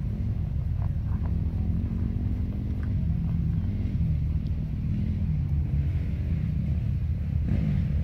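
Chevrolet Colorado ZR2 pickup's engine running at low revs as it crawls up a rutted, off-camber dirt trail: a steady low rumble whose pitch wavers slightly, with a brief surge near the end.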